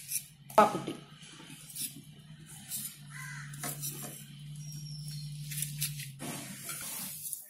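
Wire whisk and fingers stirring flour and ground urad dal in a stainless steel bowl: light scraping and clinks against the steel, with one sharp knock about half a second in. A steady low hum runs underneath from about three to six seconds in.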